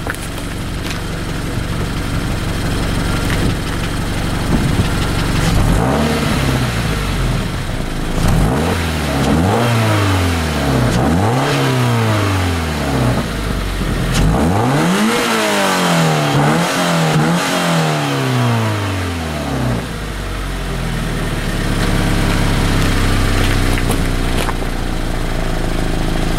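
2014 Scion FR-S's 2.0-litre flat-four on its stock exhaust, fitted with a cold air intake, idling warm. About six seconds in it is blipped in a quick series of revs, each rising and falling back. Near twenty seconds it settles back to idle.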